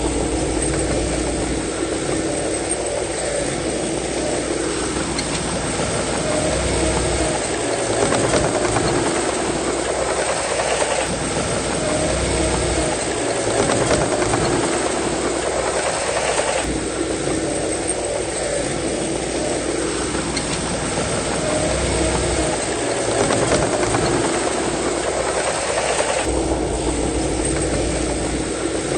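Heavy diesel earthmoving machinery working, most likely a bulldozer pushing soil: a steady loud engine and track noise that swells and eases in a cycle about every ten seconds.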